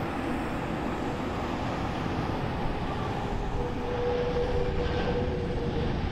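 Airbus A330 airliner's jet engines running as it rolls out on the runway just after touchdown, a steady rushing roar. About three and a half seconds in the sound grows louder and a steady tone joins it, easing again near the end.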